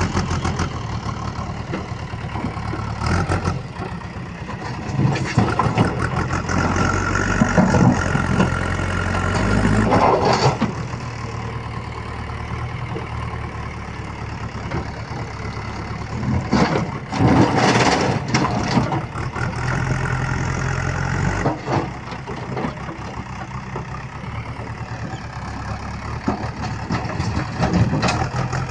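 Diesel engine of a heavy machine, such as a tractor or backhoe loader, running steadily, with several louder rushes of engine noise over it.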